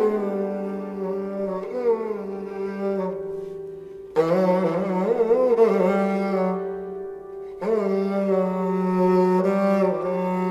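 Sarangi being bowed in a slow Hindustani melody, its notes sliding and wavering over a steady low drone. New bow strokes come in about four and about seven and a half seconds in.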